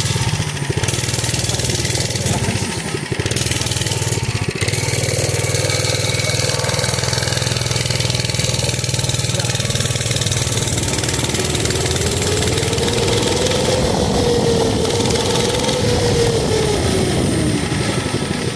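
Mini bike's small engine running as the bike rides along. It steadies, then its pitch climbs as the throttle opens about ten seconds in, holds, and drops back near the end.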